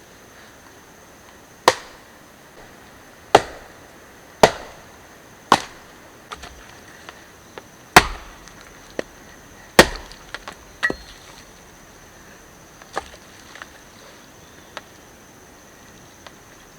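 Wood being chopped with a blade: about six hard chops at irregular intervals of one to two seconds, with lighter knocks between and after them.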